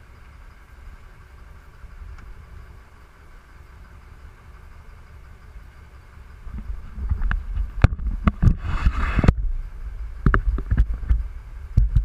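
Boat engine running steadily, with wind buffeting the microphone. From about six seconds in come loud low thumps and sharp knocks, with a short hissing burst a couple of seconds later.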